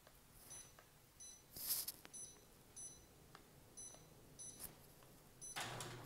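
Gree cassette air conditioner answering remote-control button presses with short high beeps, about one a second, while the set temperature is stepped up and down three times. This is the sequence that starts the grille's automatic opening. A brief rustle comes about two seconds in.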